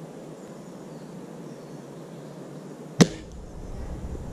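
A single shot from a spring-powered bolt-action airsoft sniper rifle, a Classic Army SR-40: one sharp crack about three seconds in, over a faint steady background hiss.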